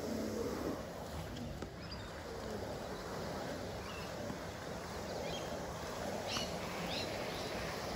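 Steady low outdoor background noise, with a few short bird chirps about six seconds in.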